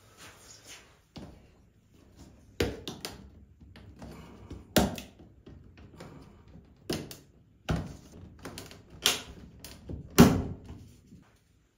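Plastic grille cover of a ceiling exhaust fan being worked loose by hand: a series of sharp plastic clicks and knocks against the ceiling, about six strong ones with lighter ticks between, the loudest near the end.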